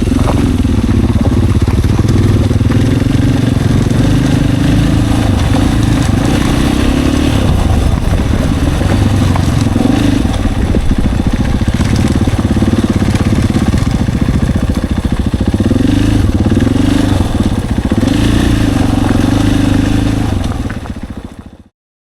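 Single-cylinder Husqvarna supermoto engine running under riding, the revs repeatedly rising and falling as the throttle opens and closes. The sound fades out near the end.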